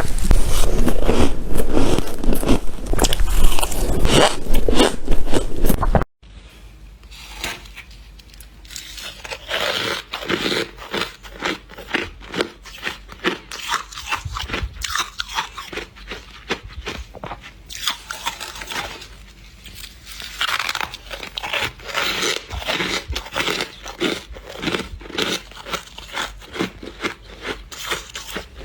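Freezer frost being bitten and chewed close to the microphone: rapid, dense crunching. A louder passage cuts off abruptly about six seconds in, and the crunching continues more quietly in bursts after that.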